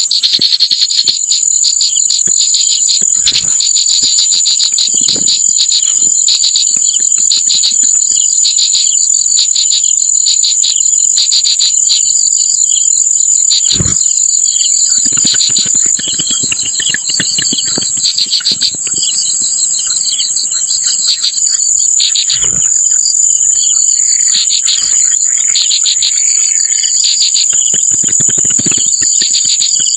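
A continuous, shrill insect chorus of crickets or cicadas: one unbroken high whine with rapid pulsing chirps just beneath it, broken by a few faint knocks.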